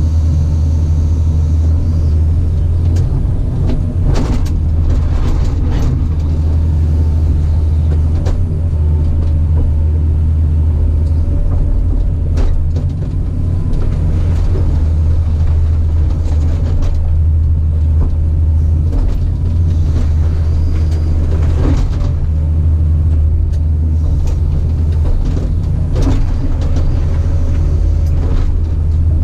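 Caterpillar 973C track loader's diesel engine running steadily under work, a loud deep drone, with repeated clanks and knocks of the machine at work.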